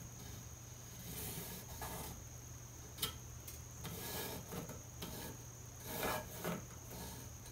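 Pencil scratching on the wooden headstock of a resonator guitar neck as a template outline is traced onto it, in short irregular strokes, with a sharp tap about three seconds in.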